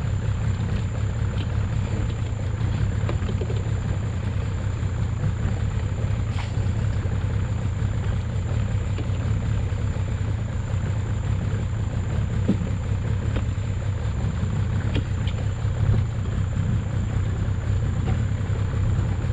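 A small wooden boat's engine idling with a steady low drone while the crab trap line is hauled in, with a few faint knocks.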